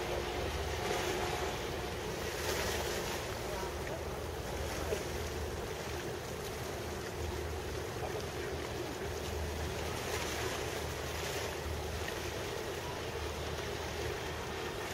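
Wind buffeting the microphone in uneven gusts over a steady background hum of harbour and ship noise.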